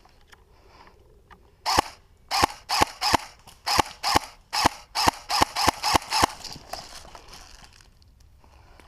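Airsoft gun firing about a dozen single shots in quick succession, sharp clacks a third to half a second apart, stopping after about four and a half seconds.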